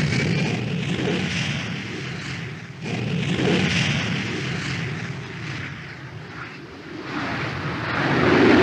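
Harrier jump jet's Rolls-Royce Pegasus vectored-thrust turbofan at high power during a short takeoff run and climb-out: a loud jet rumble and hiss. It dips briefly, jumps back up about three seconds in, and swells again near the end.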